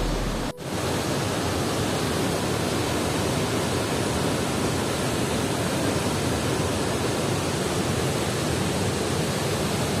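Steady rushing roar of a large waterfall pouring into a rock gorge, even and unchanging. A background song cuts off about half a second in, just before the water noise takes over.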